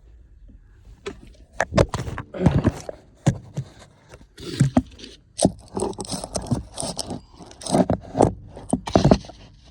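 Irregular scraping, clicks and knocks of a seat-belt assembly and plastic interior trim being handled and worked loose, starting about a second in.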